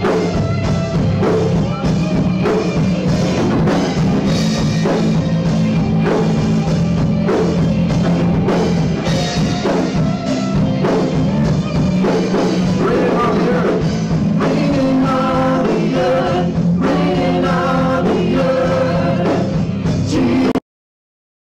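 Live contemporary worship music from a church band, with electric guitar, keyboard and women singing into microphones over a steady beat. The singing stands out more clearly in the second half, and the sound cuts out completely for about a second near the end.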